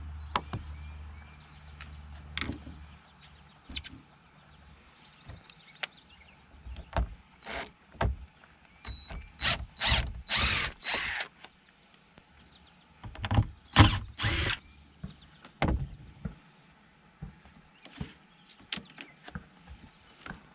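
DeWalt 20V cordless drill backing out screws, run in a series of short spurts, with scattered clicks and knocks from handling the tool and the panel.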